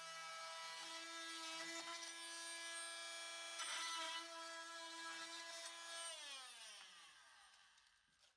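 Corded oscillating multi-tool running steadily as it cuts protruding wooden door shims flush, a steady buzzing hum. About six seconds in it is switched off and winds down, its pitch falling until it stops.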